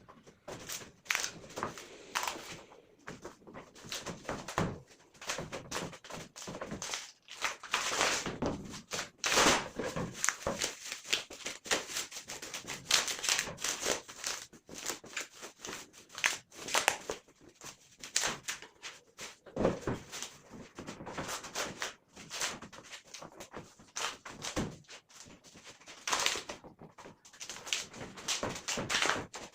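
Irregular knocks, taps and scraping clatter of wooden strips being handled and worked by hand, with some quick runs of clicks and no machine running.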